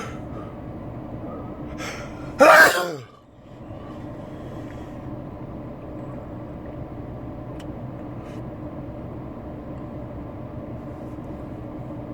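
A man sneezes once, loudly: a sharp intake of breath about two seconds in, then an explosive sneeze whose voice falls in pitch. A steady low hum, as of a car's interior, runs underneath.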